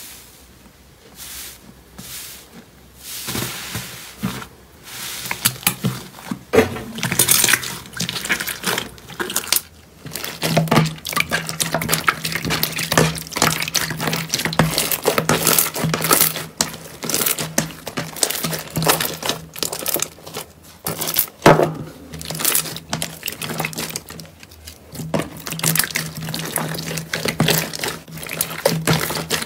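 Slime being squished and pressed by hand, with dense wet clicks and small pops. A low steady hum joins about ten seconds in.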